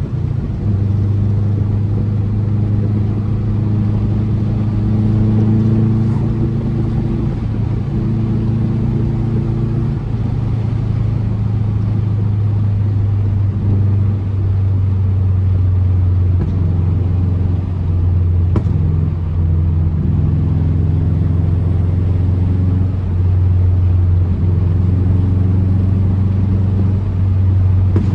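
2004 Subaru WRX's turbocharged EJ flat-four engine and exhaust running at a fairly steady engine speed while the car is driven, with a steady low rumble.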